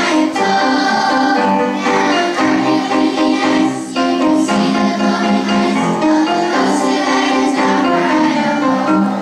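Children's choir singing a song in unison with musical accompaniment, in long held notes.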